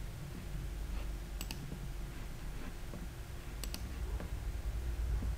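Computer mouse clicking: two sharp clicks about two seconds apart, over a steady low hum.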